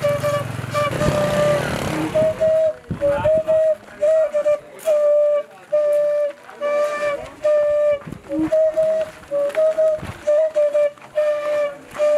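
A flute playing short, clipped notes, about two a second, mostly on one pitch with a few a little higher, in repeated phrases with brief silences between.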